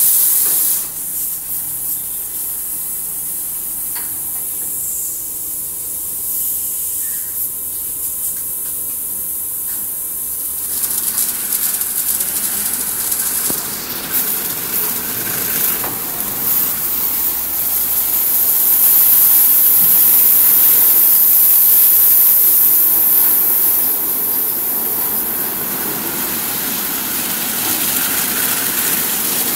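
Automatic car-wash gantry running: water jets spraying in a steady hiss while its rotating brushes work over the car, growing louder for a few seconds past the middle.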